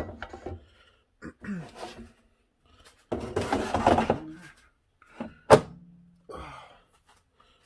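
Metal air fryer basket being handled and slid into the air fryer with clattering and scraping, then one loud thunk about five and a half seconds in as the drawer is pushed home, followed by a short low ringing.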